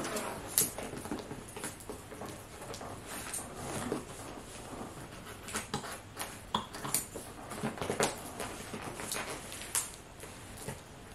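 Scissors cutting and prying at a cardboard parcel box: irregular snips, scrapes and clicks of the blades against the cardboard.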